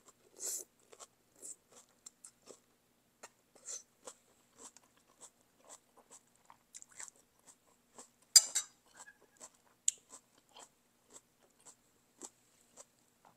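Close-miked chewing of beef noodle soup: wet mouth clicks and smacks at an uneven pace, with a short slurp of noodles near the start and one sharp louder click a little past the middle.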